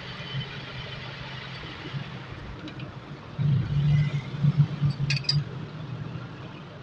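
Metal lathe running with a steady low hum that grows louder and rattles for a couple of seconds in the middle, with a few sharp metallic clicks as the chuck is handled.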